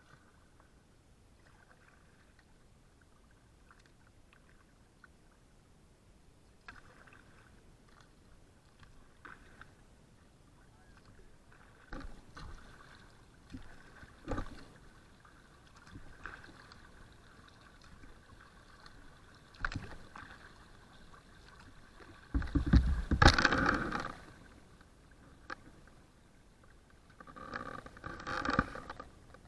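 Kayak paddle strokes in calm river water: quiet at first, then short splashes and drips every couple of seconds. A louder, longer rushing splash comes about three-quarters of the way through, and another cluster of splashes near the end.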